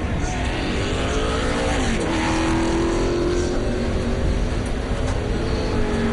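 A pack of NASCAR stock cars' V8 engines running at low, caution-period speed. Several engine notes overlap, and some drop in pitch as cars go by.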